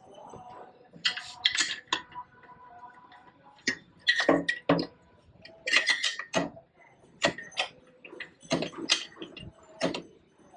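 Irregular metal clinks and knocks, about a dozen, from the bare crankshaft and steel connecting rod of a Yamaha RD350 two-stroke engine being worked by hand. Some strikes ring briefly.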